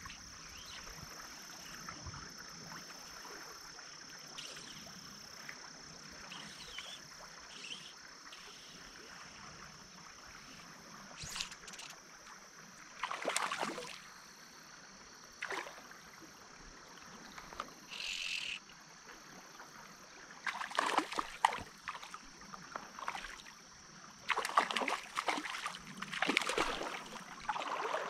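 Hooked trout splashing and thrashing at the surface of a small stream in a series of short splashes, most of them in the last third, over the steady sound of flowing water.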